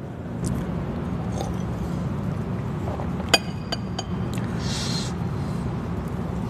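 A drinking glass set down on a table with one sharp clink about three seconds in, with a few lighter ticks around it, over a steady low hum.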